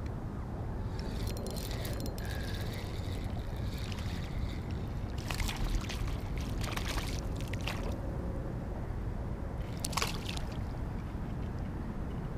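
A largemouth bass splashing at the surface in several short bursts as it is reeled in on a spinning reel, over a steady low rumble.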